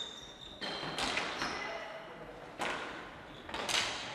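Indoor hockey play in a sports hall: a series of sharp knocks of sticks striking the ball, about four, each echoing in the hall.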